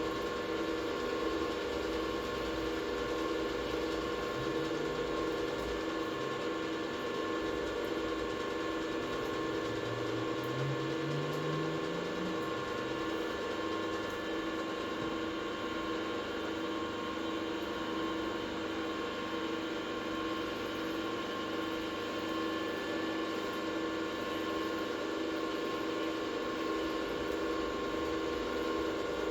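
A workshop machine's electric motor running steadily with a constant hum, with a brief rising tone about ten seconds in.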